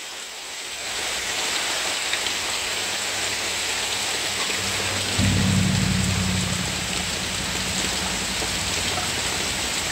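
Heavy downpour of a windy thunderstorm pouring steadily, with a roll of thunder breaking about five seconds in and rumbling away over the next few seconds.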